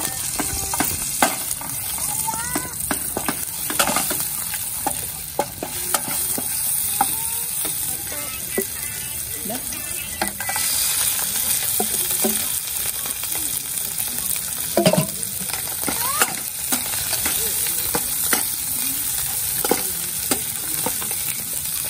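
Chopped chilies, garlic and shallots sizzling in oil in a camping frying pan, stirred with a wooden spatula, with a steady hiss and many short clicks and knocks. About ten seconds in, fried small fish go into the pan and are stirred through the sizzling oil.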